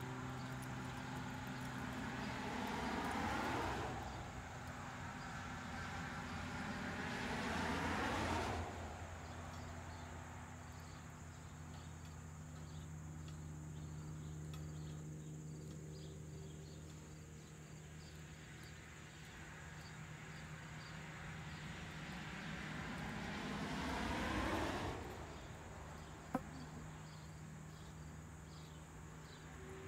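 Vehicles passing on a road, three times, each growing louder and then falling away quickly, over a steady low hum and faint insects chirping. A single sharp click near the end.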